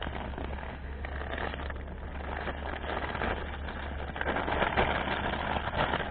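Dry winter groundbait being stirred and mixed by hand in a container: a gritty, crackly rustling that grows louder about four seconds in, over a steady low rumble.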